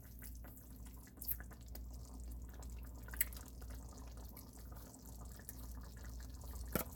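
Thick lemon pepper sauce with onions simmering in a stainless steel skillet: faint, irregular popping of bubbles breaking at the surface, with a few sharper pops.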